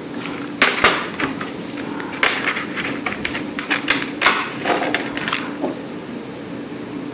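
Plastic CD jewel cases clicking and clattering as they are handled and turned over among other cases on a wooden table: a series of sharp, irregular knocks.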